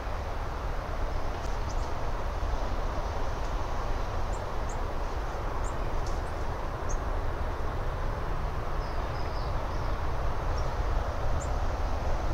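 Steady outdoor background noise, a low rumble with a hiss over it, with a few faint, short, high chirps scattered through.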